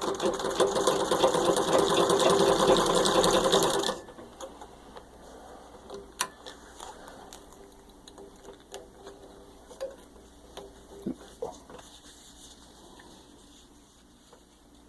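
1923 Singer 66 treadle sewing machine stitching at full speed through six layers of denim for about four seconds, then stopping abruptly. The run is a test for skipped stitches. Scattered light clicks and knocks follow.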